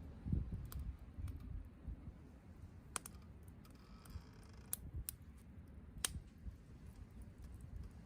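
Wood campfire crackling: scattered sharp pops a second or more apart over a low rumble, which is strongest in the first second and a half.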